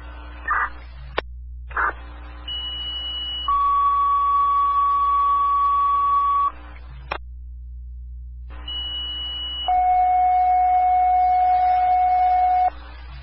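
Two-tone sequential fire pager tone-outs heard through a scanner radio. There are two sequences, each a short high tone of about a second followed by a longer, lower, louder tone of about three seconds, with a radio click before each sequence. The tones alert mutual-aid fire companies to respond.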